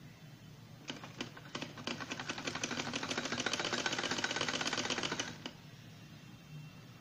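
Sewing machine stitching a seam: a few slow separate clicks about a second in, then a rapid, even clatter of stitches that stops suddenly about five and a half seconds in.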